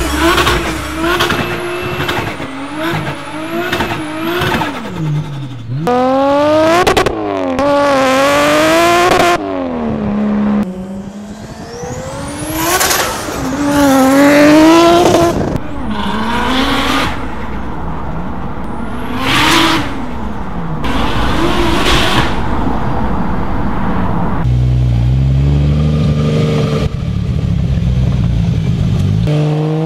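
Nissan Skyline R33's turbocharged RB25DET straight-six revving hard in a string of runs and drive-bys, pitch climbing through the revs and dropping away as the car passes, several times over. Near the end it settles into a low steady drone, then climbs again.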